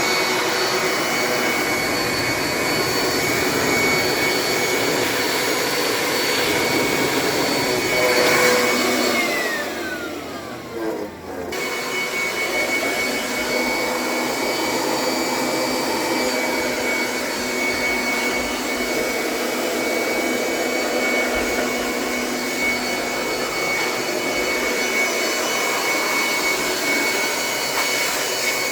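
A loud, steady motor whir with a fixed whine. About nine seconds in it slides down in pitch and drops away, then cuts back in abruptly about two seconds later.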